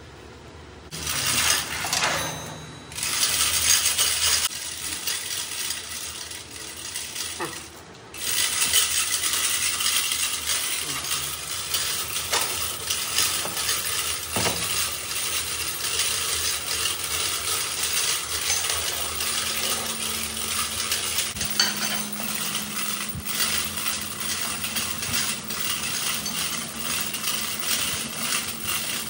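Hand chain hoist's steel chain rattling and clinking as it is hauled. It comes in short bursts at first, then runs on steadily from about eight seconds in.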